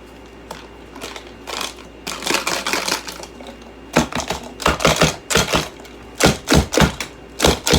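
Hard plastic parts of a Bissell vacuum cleaner clicking and clattering as they are worked apart with a flathead screwdriver. Light rattling at first, then sharper knocks in quick clusters from about halfway through.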